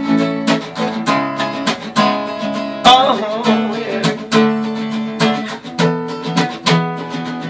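Solo acoustic guitar strummed in a steady rhythm, about two strums a second, with the chords ringing between strokes.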